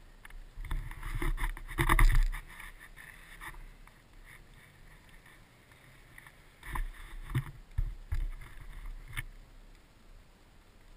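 Muffled dirt bike ride heard through a helmet camera's waterproof case: sharp knocks and bumps with a low rumble as the bike goes over rough trail, in a cluster about a second in and again from about seven to nine seconds.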